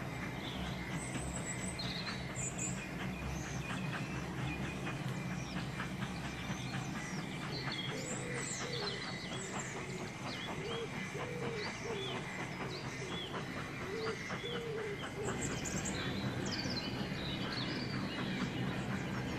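Songbirds chirping and calling, many short high chirps, over a steady low hum.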